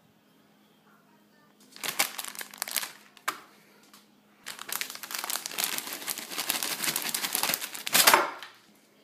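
Plastic bag of shredded cheese crinkling as the cheese is shaken out and spread by hand. There is a short stretch about two seconds in, then a longer, denser stretch from about four and a half seconds to eight, loudest just before it stops.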